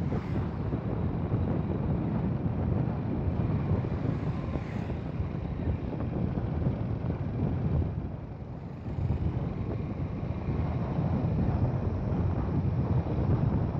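Wind buffeting the microphone as a rough, steady low rumble, with a motorcycle engine running faintly underneath as the bike rides up. The wind noise drops briefly a little past the middle.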